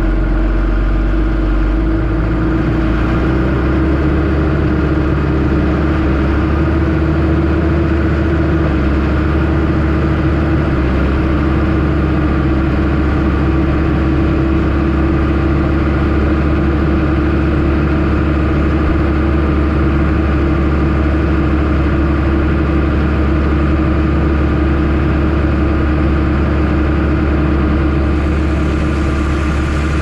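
Case CS150 tractor's diesel engine running steadily under load while pulling a power harrow and seed drill combination through the field.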